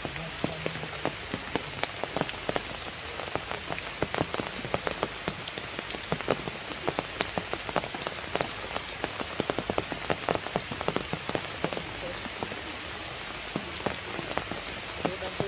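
Heavy rain falling steadily, with many close drops hitting sharply and irregularly over an even hiss.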